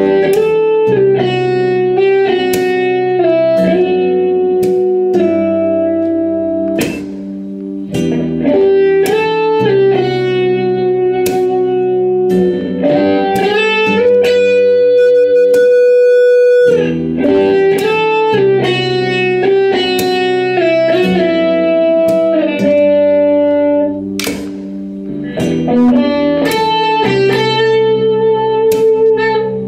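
Instrumental guitar music: picked notes that ring and sustain over lower bass notes, briefly softer twice.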